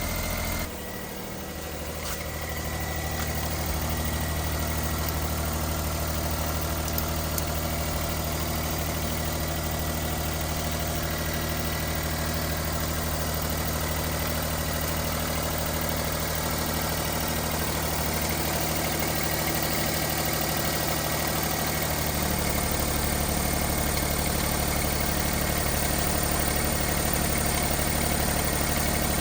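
Small 660 cc kei truck engine idling steadily, with a brief break about a second in and the idle speed stepping up slightly about three-quarters of the way through.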